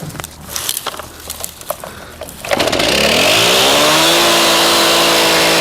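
A few clicks and knocks of handling, then a chainsaw's two-stroke engine revs up about halfway through and is held at high speed.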